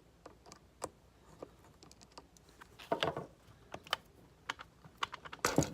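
Light plastic clicks and taps of a rotary shift dial knob being worked loose off its shift module by hand. The clicks are irregular, with a louder cluster about three seconds in and the loudest just before the end.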